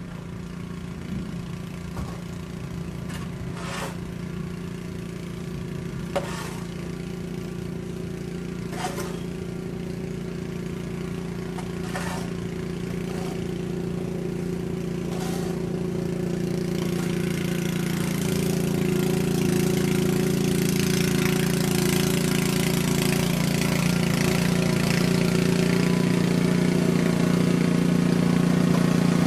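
An engine running steadily, with a few sharp clicks or knocks every few seconds in the first half; from about halfway through it grows louder and a hiss builds over it.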